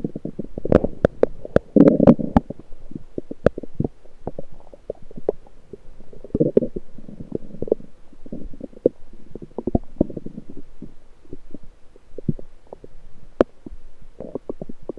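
Lower intestinal bowel sounds picked up through an electronic stethoscope on the belly: bursts of low gurgling with many sharp clicks and pops, the clicks densest in the first few seconds.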